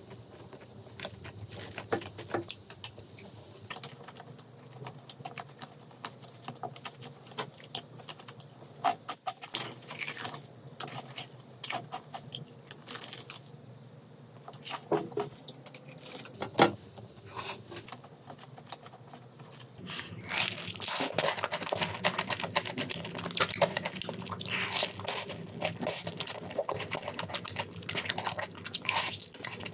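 Close-miked eating: biting and chewing crispy fried chicken, with many sharp crunches and crackles. About two-thirds of the way in, the crunching and chewing turn louder and denser.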